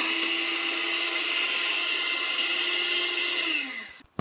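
Handheld electric mixer running steadily with a high motor whine, its beaters working the wet ingredients for a butter cake in a stainless steel bowl. Near the end the motor is switched off and winds down in pitch, followed by one sharp knock.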